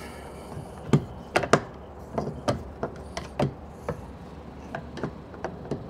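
Scattered light clicks and taps, two or three a second, of a screwdriver and hands against the hard plastic door panel of an NB2 Mazda Miata while feeling for a hidden screw.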